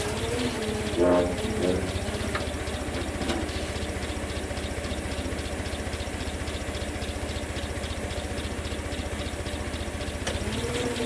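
Truck engine running steadily while the wrecker's boom and bed assembly is lifted from the truck. About a second in there is a brief loud creak as the load comes up. A whining tone drops in pitch at the start and rises again briefly near the end.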